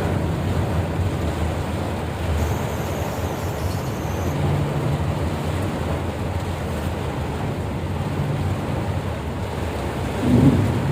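A vehicle's engine running under a steady rushing noise of heavy rain and floodwater, with a brief louder sound near the end.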